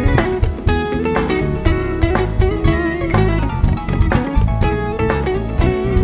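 Live band playing an instrumental passage: electric guitar over a steady drum kit beat and bass, with bending lead notes.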